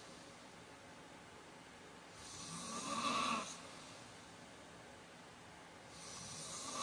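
A man snoring in his sleep: one snore about two seconds in that builds up and then cuts off sharply, and the next one starting near the end, a few seconds apart.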